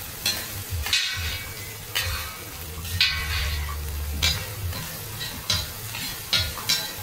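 Two long-handled metal spatulas scraping and clacking against a flat metal griddle as a crispy mussel-and-egg pancake (hoi tod) is chopped and turned, about one stroke a second. Under them is a steady sizzle of egg and mussels frying in oil.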